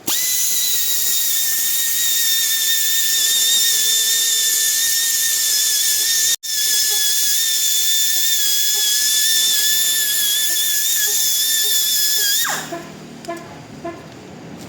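High-speed rotary power tool running steadily with a high-pitched whine and hiss, used on the damaged tire. It starts abruptly, cuts out for an instant about six seconds in, and stops about twelve seconds in.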